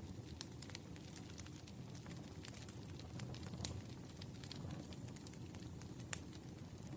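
Wood fire burning: a steady low rumble of flame with frequent irregular crackles and pops, one louder pop about six seconds in.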